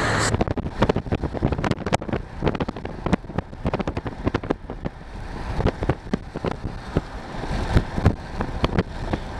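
Wind buffeting the microphone from a moving vehicle: irregular crackles and gusts over a low road rumble.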